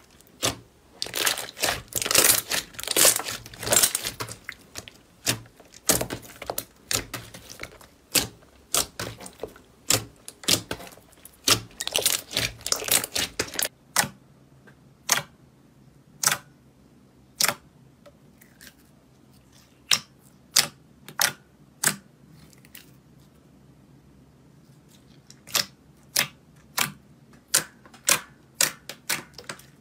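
Hands pushing and squashing glittery slime, giving a dense run of wet squishing and crackling. About halfway through it changes to fingers pressing a clear slime, with separate short, sharp pops and clicks a few at a time.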